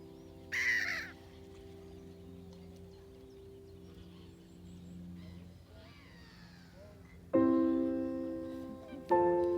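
Slow piano music with held chords, a new chord struck loudly about seven seconds in and another near the end, each fading away. A single short, harsh bird call, crow-like, sounds about half a second in.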